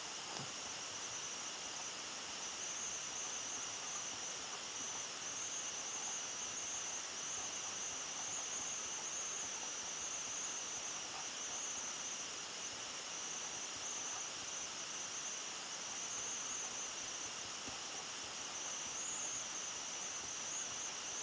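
Steady background hiss with a continuous high-pitched whine.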